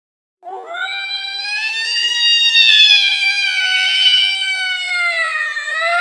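An angry cat's long, drawn-out yowl. One wavering call starts about half a second in and dips in pitch, then rises again near the end.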